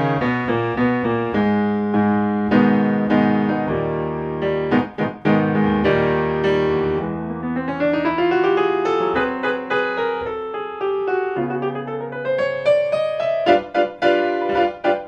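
Piano music accompanying the film, with two rising runs of notes in the second half.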